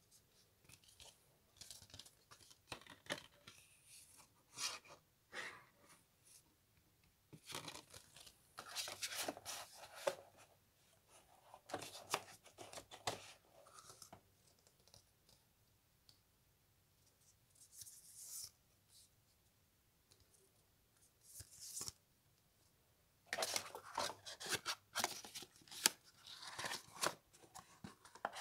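Cardboard CD sleeves and paper inserts rustling and scraping as they are handled and slid out of a box, in scattered bursts with quiet gaps between.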